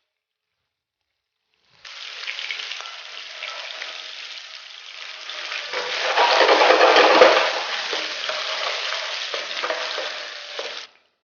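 Sausages sizzling as they fry in hot oil in a pan, being stirred. The frying starts about two seconds in, swells louder in the middle and cuts off suddenly near the end.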